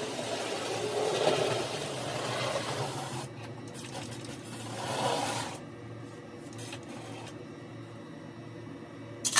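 Postwar Lionel O gauge toy train running on tinplate track: the electric motor whirs and the wheels rattle over the rails, sped up to double speed. The running swells about a second in and again near the middle, then drops to a quieter hum.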